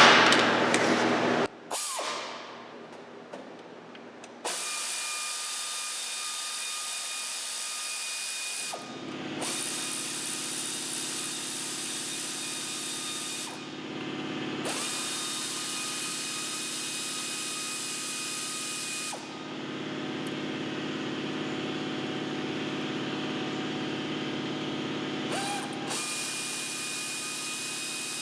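A clank, then a power tool running in long stretches with a steady whine, stopping and restarting several times, as the throttle body's fasteners are taken off the engine.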